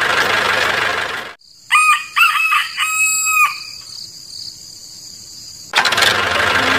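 A rooster crowing once, a pitched call in several rising and falling parts about two seconds in. Before and after it a loud, even, noisy din cuts off about a second in and comes back near the end.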